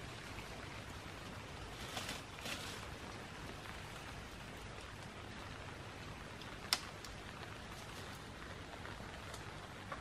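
Leafy branches rustling briefly twice as dense foliage is pulled by hand, then one sharp snap, over a steady soft hiss.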